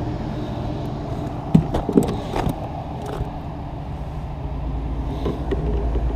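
A few sharp knocks and thumps on a plastic kayak as a freshly caught bass is swung aboard and flops about while being grabbed and unhooked, the loudest of them bunched about one and a half to two and a half seconds in. A steady low rumble runs underneath.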